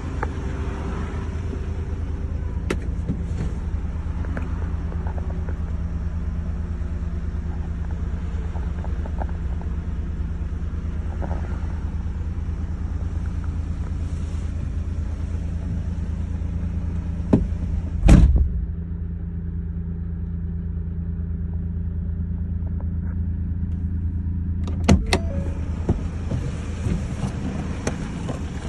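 Ford Transit's 2.0-litre four-cylinder diesel idling steadily, heard from inside the cab. A few light clicks and knocks come over it, the loudest a heavy thump about two-thirds of the way through.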